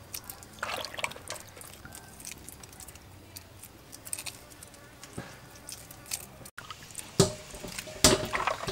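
Faint crackling, clicks and small drips as hard-boiled duck eggs are peeled over a basin of water. After a break, two louder splashing knocks about seven and eight seconds in, as peeled eggs drop into a stainless-steel bowl of water.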